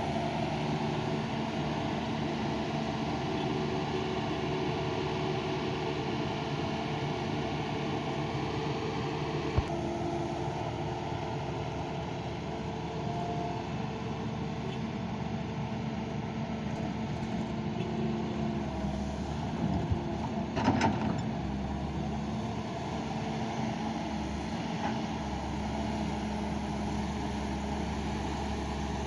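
Doosan excavator's diesel engine running steadily, with a single sharp knock about ten seconds in and a short clatter of knocks around twenty seconds in.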